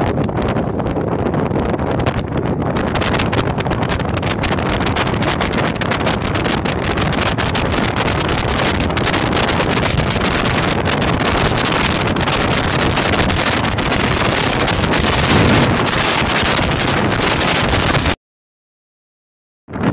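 Speedboat under way at speed: steady wind buffeting the microphone over the boat's engine and rushing water. Near the end the sound cuts out to silence for about a second and a half.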